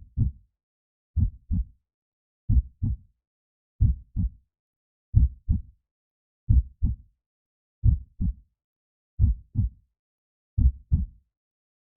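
Slow, steady heartbeat: a low double thump, lub-dub, about every 1.3 seconds, nine times over, with silence between the beats.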